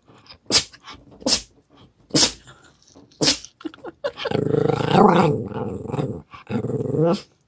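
Pet dog vocalizing to beg for watermelon: a few short, sharp huffs, then from about four seconds in a long grumbling noise, and a shorter grumble near the end.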